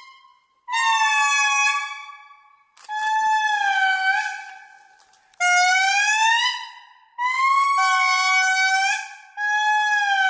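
Indri lemur song: about five long, loud, wailing calls in a row, each held on a note and then bending up or down, with short breaks between them.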